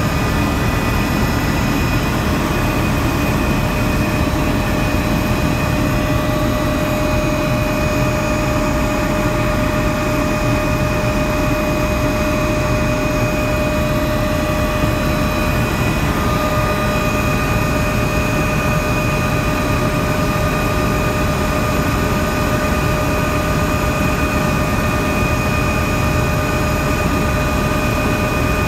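Helicopter in flight heard on board: steady engine and rotor noise with a high whine that holds an even pitch throughout.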